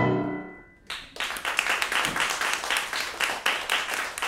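Violin and piano end the piece on a final note that rings and fades out over about a second. Then a small audience breaks into steady applause.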